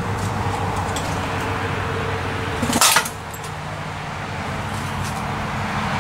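An engine running steadily in the background, with one brief, sharp metallic clank a little under three seconds in.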